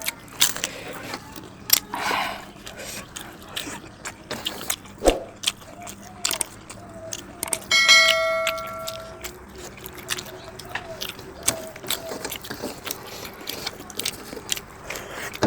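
Close-up eating sounds: chewing and mouth noises with many short clicks and crackles. About eight seconds in, a single clear metallic ring sounds for a second or so.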